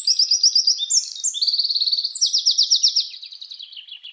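A songbird singing: rapid trills of repeated high, clear notes that step between pitches, growing fainter near the end.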